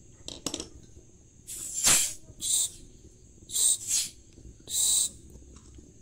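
Refrigerant gas hissing out of the red charging hose in several short spurts as the fitting is cracked open to purge air from the hose before charging, the first spurt about two seconds in the loudest.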